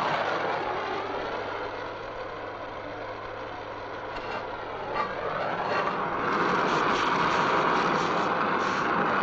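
A motor vehicle engine running; its note drops over the first couple of seconds and rises again about five seconds in, as if revving back up. A single sharp click sounds about five seconds in.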